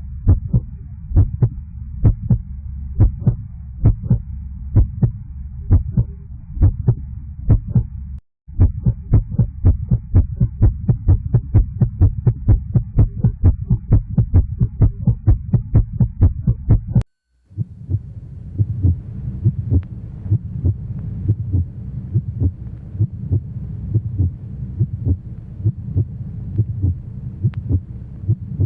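Heartbeat sound effect: three heartbeat recordings played one after another, each a steady run of low beats, with brief silences about 8 and 17 seconds in. The middle recording beats faster, and the last has a faint hiss under its beats.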